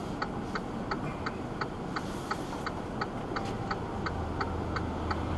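Hazard flashers clicking evenly in a stopped semi truck's cab, about three ticks a second, over the low hum of the idling engine.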